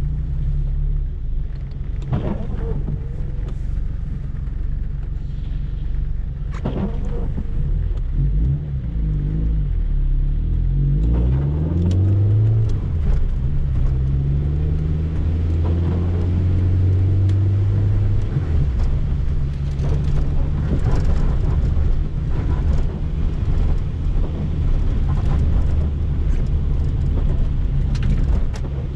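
Peugeot 205 XS's 1.4-litre carburetted four-cylinder engine heard from inside the cabin. It idles steadily at first, then rises in pitch as the car pulls away about eight seconds in, holds higher for several seconds, and settles into steady running.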